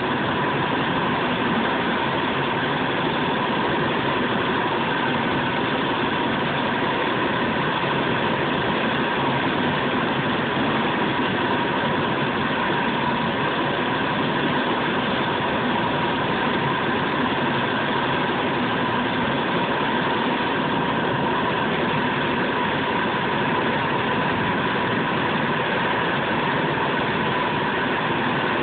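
Steady drone of machinery running, an even noise with a thin, constant whine in it and no change in pitch or level.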